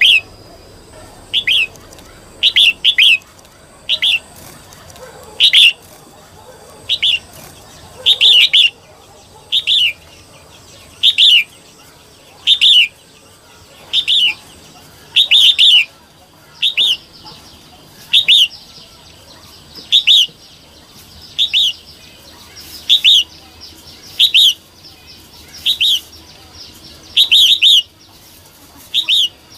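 Female red-whiskered bulbul giving short, sharp calls about every one and a half seconds, some of them doubled. This is the female call that bulbul keepers play to excite and stimulate male birds.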